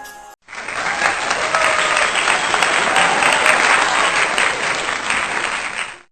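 Audience applause, a dense clapping that starts abruptly about half a second in and cuts off sharply just before the end.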